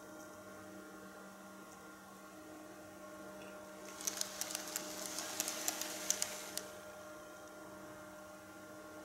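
N-scale model train running on its track over a steady electrical hum, with a stretch of rapid clicking and rattling from the wheels on the rails from about four to six and a half seconds in; the train is standing still by the end.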